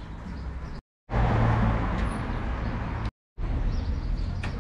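Outdoor street ambience with a steady rumble like a running vehicle, louder between about one and three seconds in. It cuts out to silence twice for a moment, about a second in and again about three seconds in.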